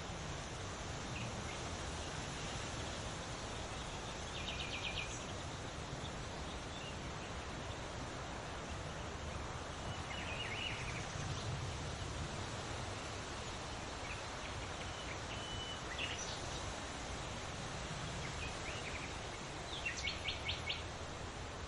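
Wind rustling through leaves as a steady hiss, with small birds calling now and then: a quick trill of rapid notes about five seconds in and again near the end, and a few short chirps between.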